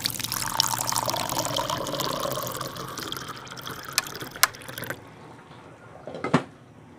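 A loud rush like pouring liquid that starts and stops abruptly and lasts about five seconds, with two sharp clicks near its end. About six seconds in, a stainless steel lid clanks once onto the cooking pot.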